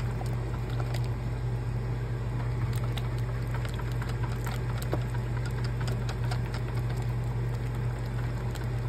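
A silicone-coated whisk beats thickening pan-drippings gravy in a steel saucepan, making a steady run of small clicks, scrapes and wet slaps against the sides and bottom of the pot. A steady low hum sits underneath.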